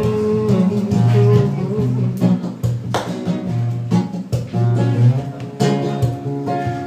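Acoustic guitar strummed, its chords ringing, in an instrumental break of a live song.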